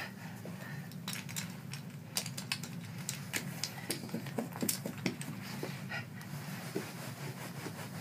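Wooden alphabet puzzle pieces being picked up and handled, giving irregular light clicks and taps several times a second over a steady low hum.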